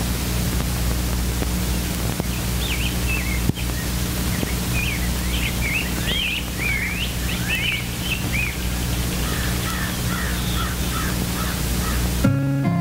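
Birds calling in short chirps over the hiss and steady low hum of an old 16mm film soundtrack, with a single click about three and a half seconds in. Acoustic guitar music comes in near the end.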